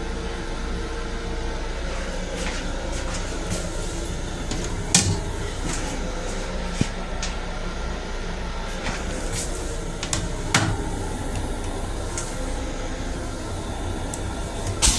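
Steady running hum of a Long Island Rail Road M7 railcar, heard inside its small restroom, with occasional knocks and rattles. The sharpest knocks come about five and ten and a half seconds in, and again right at the end.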